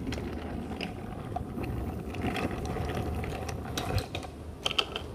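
Wooden toy train pushed by hand along wooden track, its wheels rattling over the rails, with a few sharp clicks near the end.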